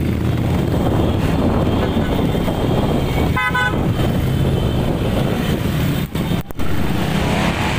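Motorcycle engines running in a large group of riders, a steady loud rumble, with a short horn toot about three and a half seconds in.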